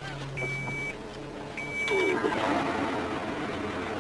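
A car being started: two half-second electronic beeps from the dashboard, then the engine starts about two seconds in and runs steadily.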